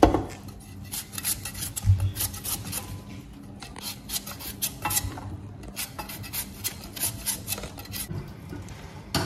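Kitchen knife shaving the peel off a hard sweet potato by hand, in short, irregular scraping strokes, several a second.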